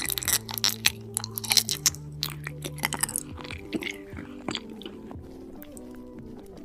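Close-up chewing and crunching of food, with dense, sharp crunches for the first three seconds and then sparser ones, over soft background music.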